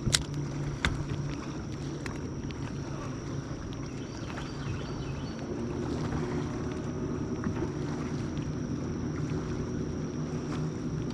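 Small fishing boat rocking on jet-ski wake: water sloshing against the hull under a steady low hum, with a few sharp knocks in the first two seconds.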